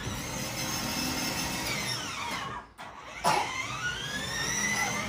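Electric motors and gearbox of a battery-powered BMW ride-on toy car whining as it drives. The pitch falls as the car slows and cuts out briefly about halfway through. It starts again abruptly and loudly, then rises as the car speeds up.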